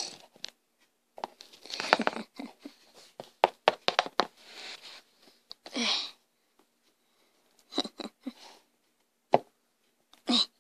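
Scattered taps, clicks and short rustles of a plastic pony figure and a toothpaste tube being handled and set down on a hard floor.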